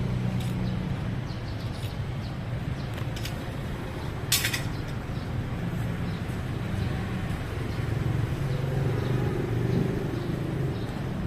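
Rusi RFI 175 motorcycle engine running steadily, with one sharp click a little over four seconds in.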